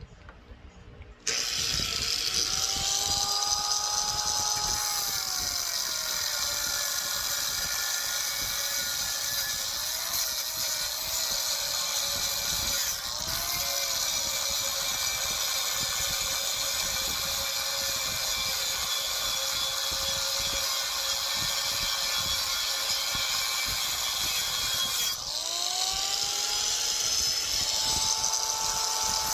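A power tool cutting into the cast iron handle of a pot lid. Its motor whine rises as it spins up about a second in, then drops and holds lower under the load of the cut, over a loud hiss of cutting. Near the end it briefly slackens and spins back up.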